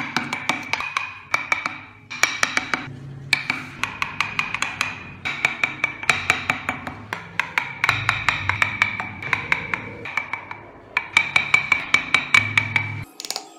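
A thin steel chisel being struck in quick runs of rapid taps as it cuts detail into a small wooden toy car, each run lasting a second or two with short pauses between, with a ringing metallic tone.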